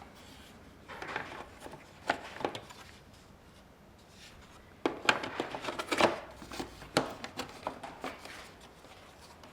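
Hard plastic clicks and knocks as an aftermarket fog light cover is handled and pushed against a car's front bumper to seat its clips, with a cluster of sharp clacks about halfway through.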